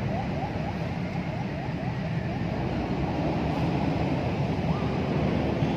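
Steady outdoor background noise, a low rumble with hiss. A run of quick short rising chirps, about three a second, sounds over it in the first couple of seconds.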